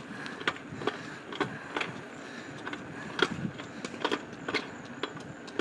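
Small wheels rolling over a paved street: a steady low rumble with irregular clicks and rattles.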